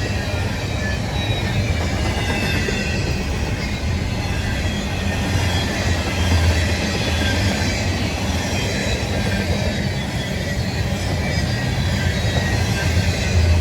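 CSX freight train rolling past, a steady rumble of the cars and wheels with faint high wheel squeals here and there.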